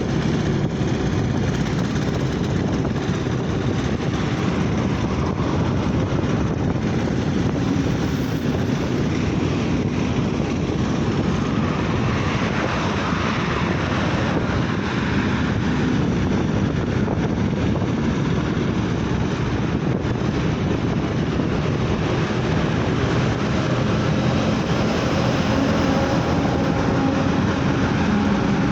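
Steady vehicle noise while travelling along a road: an even, unbroken rumble of engine, tyres and wind, heaviest in the low end.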